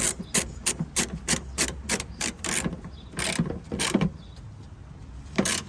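Ratchet wrench clicking in quick even strokes, about three a second, as it tightens the backup camera's mounting bolts, then a few slower strokes and a last one near the end.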